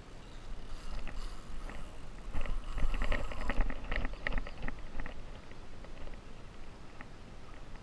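Spinning reel's drag ticking rapidly and irregularly for about two and a half seconds as a dolphin mouthing the live bait pulls line against the heavily set drag. Under it is a low rumble of wind on the microphone.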